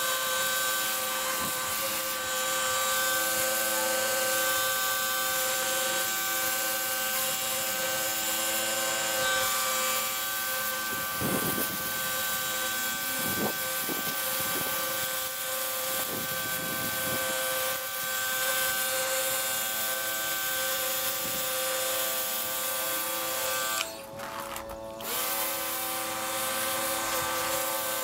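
Electric pressure washer running: a steady motor whine with several held tones over the hiss of the water jet. The hiss drops out for about a second near the end.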